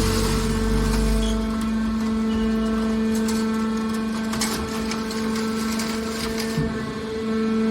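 Hydraulic scrap metal baler running: a steady hum from its motor and hydraulic pump, with a deeper rumble that drops away about a second and a half in and a few short knocks of metal partway through.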